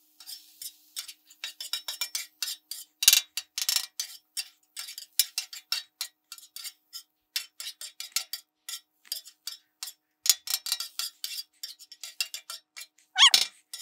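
Metal spatula and chopper clacking and scraping on the steel top of a flat-top griddle as ground chicken is chopped and turned, in quick, uneven strokes.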